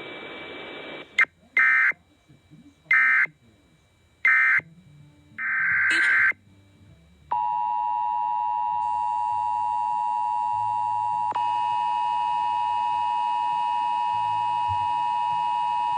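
Emergency Alert System end-of-message data tones: three short digital bursts a little over a second apart, then one longer burst. About seven seconds in, the EAS attention signal starts, a steady two-tone 853 and 960 Hz tone that holds to the end.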